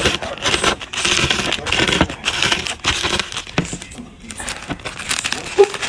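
Bag of Hot Cheetos being crushed by hand: crinkling plastic packet and crunching chips, with a short lull about four seconds in.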